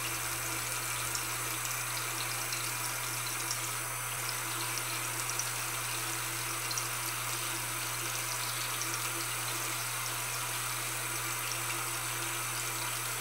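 Water tap running steadily into a sink.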